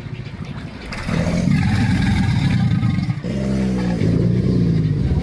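Alligator giving a run of low, rumbling calls, each about two seconds long with short breaks between, that sound like a motorcycle revving up.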